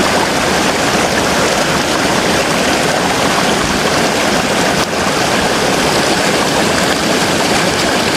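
Waterfall pouring into a creek pool: a steady, loud rush of water.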